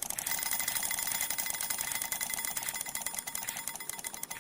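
An alarm clock bell ringing in a rapid, continuous stream of strokes, slowly fading.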